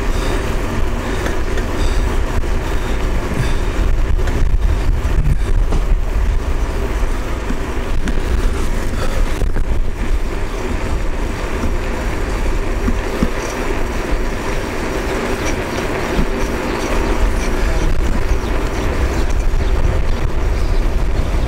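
Kulana tandem bicycle rolling along asphalt: a steady rumble of tyres on the road with light rattling from the bike, and wind buffeting the microphone.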